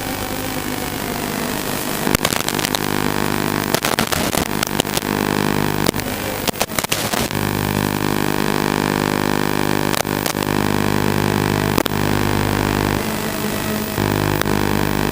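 FPV racing quadcopter's electric motors and propellers running steadily, with occasional sharp cracks.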